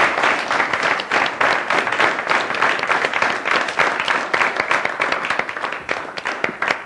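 Studio audience applauding, a dense run of handclaps that dies away near the end.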